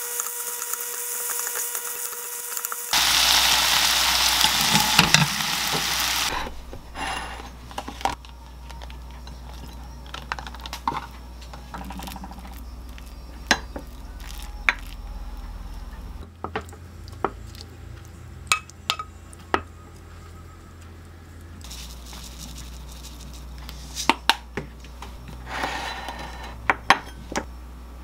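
Bok choy and chicken stir-frying in a pan, stirred with a wooden spoon: a hissing sizzle that swells about three seconds in and stops after about six seconds. Then a wooden spoon scraping and knocking in a ceramic bowl as rice and the stir-fry are dished up, with scattered sharp clicks of utensils on dishes.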